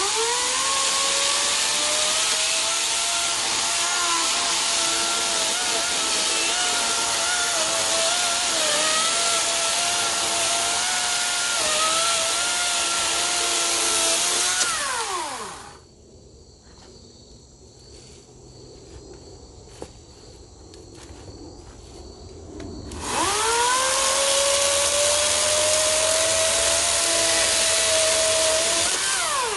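Ego 56-volt 16-inch brushless battery chainsaw cutting through a small tree trunk: the motor's steady whine with chain noise spins up quickly, runs for about fifteen seconds and winds down. After a pause, a second cut of about six seconds spins up and winds down near the end.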